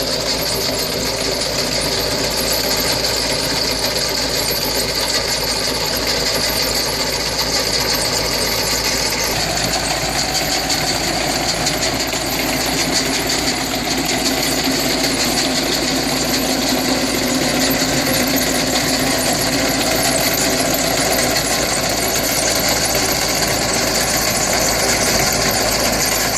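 Tractor engine running steadily under load while driving a Bulls BG-1500H tractor-mounted root-crop harvester lifting garlic. A continuous mechanical drone whose engine tones shift slightly about nine seconds in.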